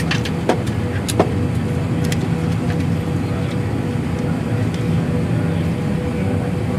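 Steady low hum of an Airbus A319's cabin during pushback, with a faint steady tone running through it. A few sharp clicks sound in the first two seconds.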